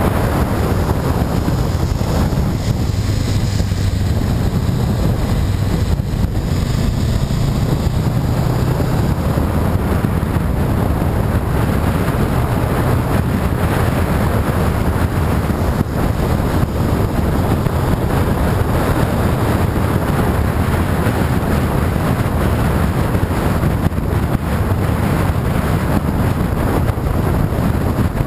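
A motorcycle riding at speed: steady wind rush on the microphone over the low, even drone of the engine.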